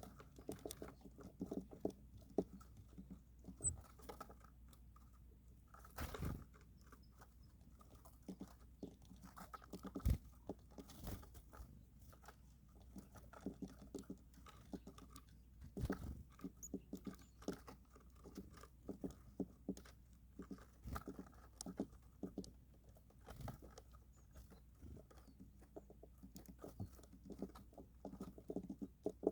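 Small birds feeding, a continuous scatter of small pecking clicks and seed-cracking crunches, with a few louder knocks about 6, 10 and 16 seconds in.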